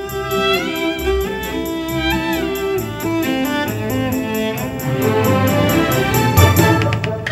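Instrumental dance music: bowed strings play a melody with sliding notes over a steady pulse, with a heavier low hit about six seconds in.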